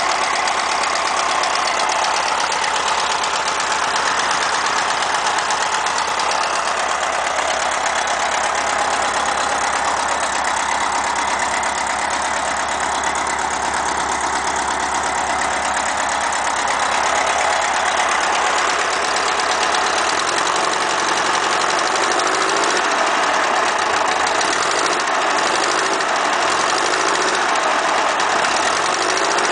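VW Beetle engine running, with a tapping sound the owner cannot identify and asks others to diagnose.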